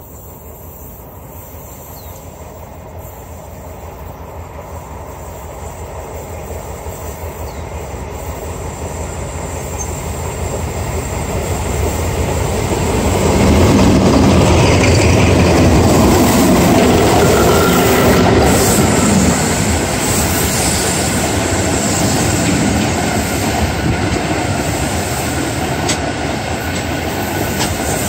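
Two TCDD DE24000-class diesel-electric locomotives heading a freight train, growing louder as they approach and passing about halfway through. Freight wagons then roll by with wheels clattering over the rail joints and a thin wheel squeal.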